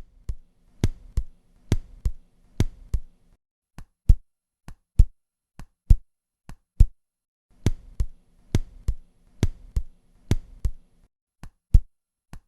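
Synthesized heart sounds heard at the cardiac apex, a regular lub-dub rhythm, demonstrating a weakened first heart sound: the first tone of each pair is quieter than the second. Two versions alternate, one with a faint steady hum under the beats and one without.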